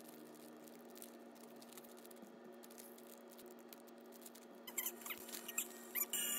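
Thin clear plastic candle bags crinkling and rustling in the hands as birthday candles are slipped into them: light crackles throughout, louder and denser near the end.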